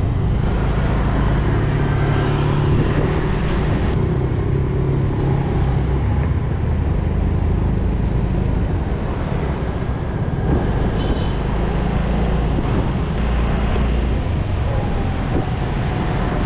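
Yamaha 125cc single-cylinder scooter engine running steadily at low speed, heard from the rider's seat with road noise and the engines of surrounding motorbike traffic.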